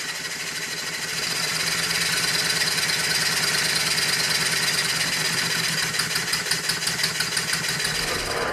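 Stuart Models No. 9 horizontal model steam engine running on compressed air: a steady rushing hiss of exhaust with rapid rhythmic puffs, growing louder over the first second or two as it picks up.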